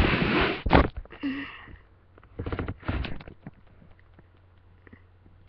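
Hands fumbling with a new CD's packaging right at the microphone: bursts of rustling and handling noise in the first second and again about two and a half to three seconds in, then light scattered clicks.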